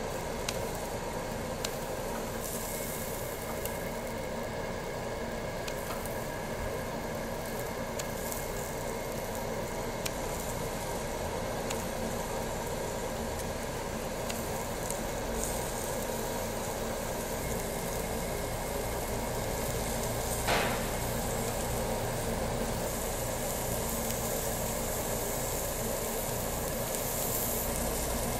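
Pork shoulder sizzling steadily on a ridged grill pan over charcoal, with scattered light clicks from metal tongs and kitchen scissors and one sharper clack about twenty seconds in.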